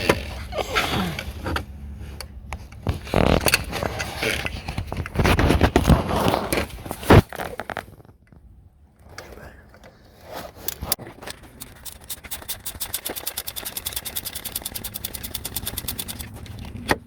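Metal hand tools clattering and scraping for several seconds, then a socket ratchet clicking fast and evenly for about five seconds as an engine bolt is unscrewed.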